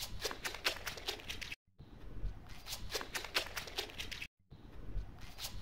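Running shoes striking asphalt in quick footfalls, about five a second, as a sprinter drives out of a standing start, over a low outdoor rumble. The same short run plays over again twice, each time after a brief cut to silence.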